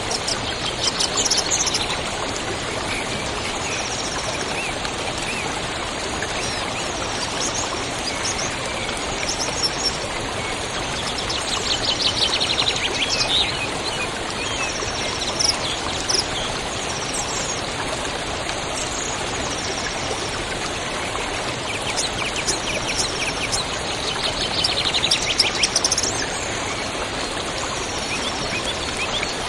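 Waterfall rushing steadily, with birds singing over it: short high calls repeating about once a second, and a rapid falling trill three times, about a second in, around twelve seconds in and near the end.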